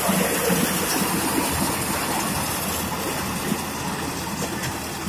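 Massey Ferguson tractor's diesel engine running under load while its front-mounted reaper cuts standing crop, growing gradually fainter as the tractor moves away.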